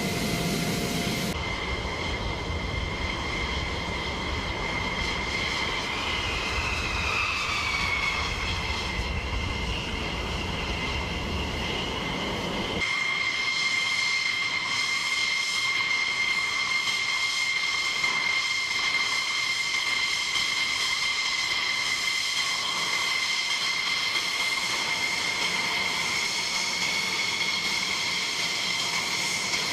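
F-16 fighter jets' engines whining at taxi power: a steady high-pitched jet whine of several tones, one of them gliding down in pitch about seven seconds in. A low rumble underneath drops away about thirteen seconds in, leaving the whine.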